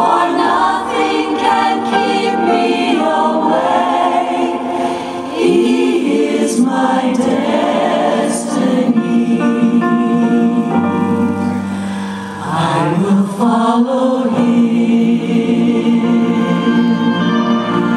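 Group of voices singing a gospel-style song together in chorus, with held notes, over music.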